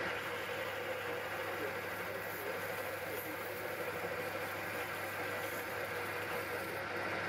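Myford lathe running at a steady speed with a constant hum from its motor and drive while the tool is hand-fed into aluminium bar.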